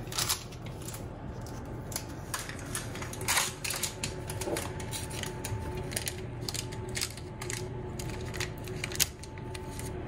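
A metal spoon scraping and tapping as it spreads minced-meat lahmacun topping over thin dough on baking paper: a run of irregular clicks and scrapes over a steady low hum.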